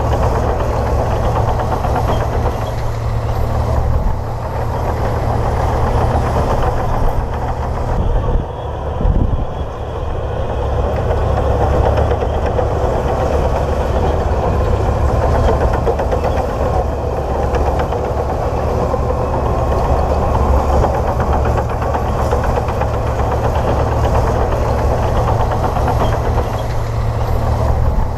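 Komatsu D58P bulldozer's diesel engine running steadily, with a short dip in level about eight to ten seconds in.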